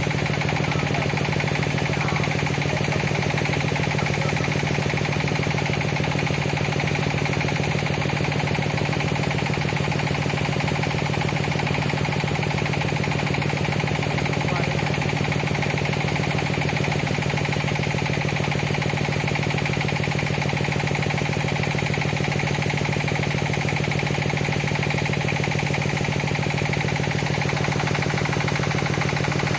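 Hitachi ZX200 excavator's diesel engine running steadily with a constant low drone, unchanging in level throughout.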